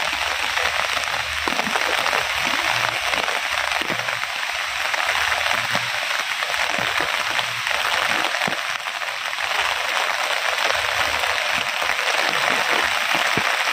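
Heavy rain falling: a steady, dense hiss that holds even throughout.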